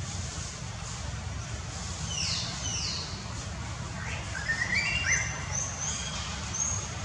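Birds chirping: two quick falling whistles, then a run of short chirps, over a steady low rumble.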